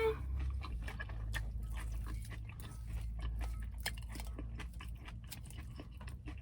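A person chewing crunchy food close to the microphone: a quick, uneven run of crunches and wet mouth clicks over a low, steady hum.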